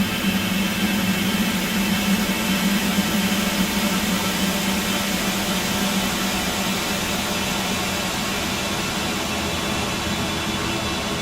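Music warped into a steady, dense noisy drone with a strong low hum underneath.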